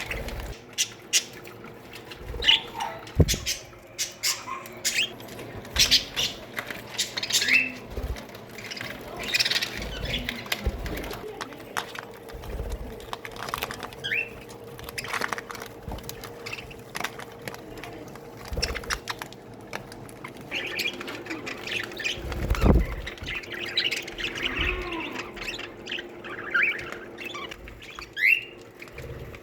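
A colony of budgerigars chattering: many short chirps, squawks and quick rising calls, with bursts of wing flutter. A faint steady hum sits underneath, and there is a dull thump about three quarters of the way through.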